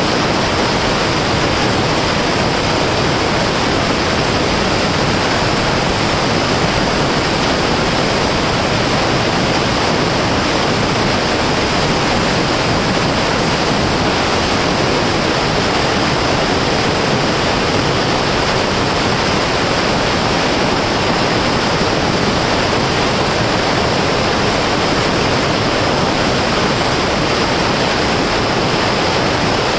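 Steady rushing wind noise on the microphone of a camera riding on an RC fixed-wing plane in flight, with a faint thin high tone above it.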